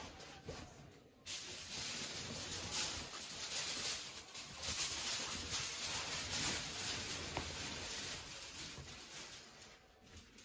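Mylar emergency foil blanket crinkling as it is unfolded and spread out. The crinkling starts suddenly about a second in, runs on continuously and dies down near the end.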